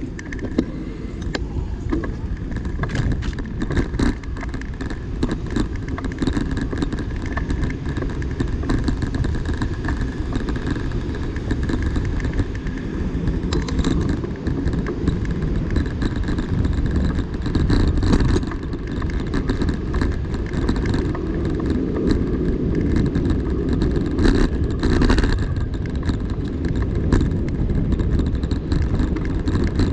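Wind buffeting the microphone and wheel rumble on asphalt during a ride along a city cycle path, with frequent short clatters as the wheels jolt over bumps.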